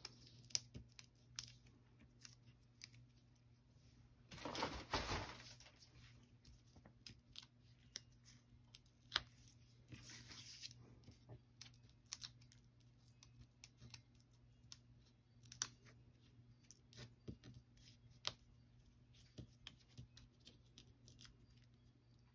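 Fingernails picking and peeling the paper release backings off small foam adhesive dimensionals: faint scattered clicks and scratches, with a louder rustling peel about four seconds in and a softer one around ten seconds.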